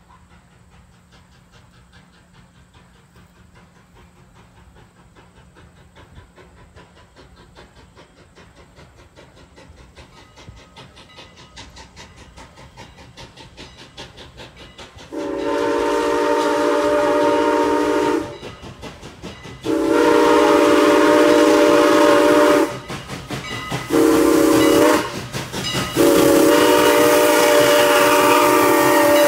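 Steam locomotive whistle sounding the grade-crossing signal: two long blasts, a short one and a final long one, starting about halfway through. Before it, a rapid regular beat from the approaching train grows steadily louder.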